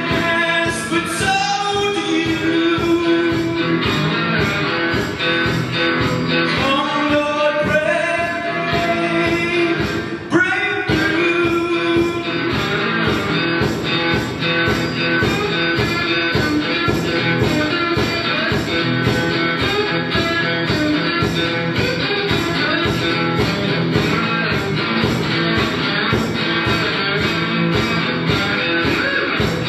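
Homemade three-string tin-can guitar played with a slide in a bluesy rock tune, notes gliding up and down between pitches over a steady beat.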